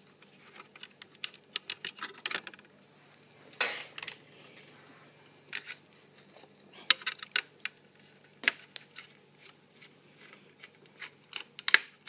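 Small screwdriver clicking and scraping on the metal screws of a laptop CPU heatsink as they are undone. The ticks and taps are scattered and irregular, with a longer scrape about three and a half seconds in and clusters of clicks around seven seconds and near the end.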